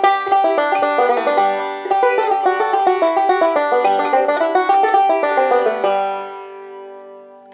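2006 walnut Nechville Phantom five-string banjo with a tunneled fifth string, picked quickly in bluegrass style. About six seconds in the tune ends on a final chord that is left ringing and fading.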